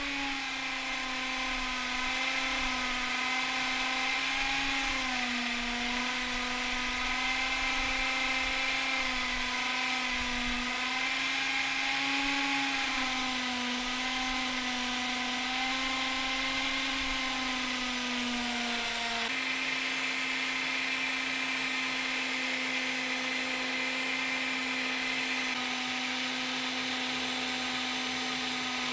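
Small electric rotary tool running steadily, a high motor whine that wavers slightly in pitch as a small metal spring is held against its spinning wheel.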